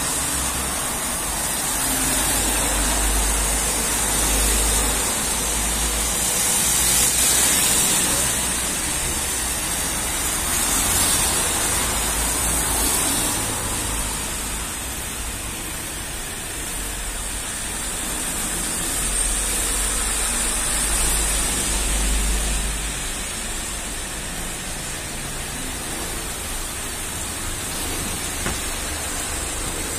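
Cars driving by on wet asphalt, their tyres hissing on the rain-soaked road, over a steady hiss. The tyre noise swells and fades a few times as cars pass.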